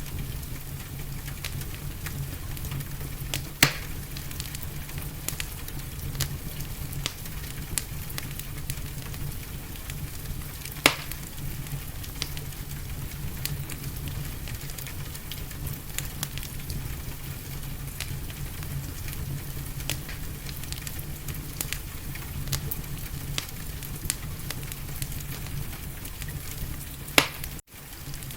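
Wood fire crackling in a fireplace: a steady run of small crackles with three sharp, loud pops, over a steady rain hiss. The sound cuts out for a split second near the end.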